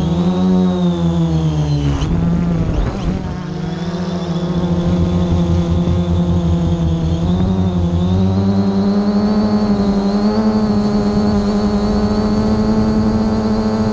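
Multirotor drone's electric motors and propellers buzzing in flight, a steady whine whose pitch sags briefly about two to three seconds in, then rises and holds higher from about eight seconds on.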